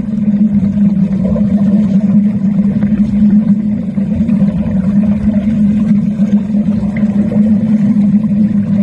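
Underwater arc welding heard through the water: a steady low buzz over a rough, crackling rumble.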